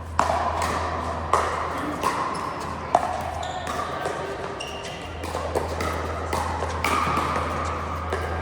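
Sharp pops of pickleball paddles striking the plastic ball, three close together in the first three seconds and another near the end, with short high squeaks between them and a steady low hum in a large hall.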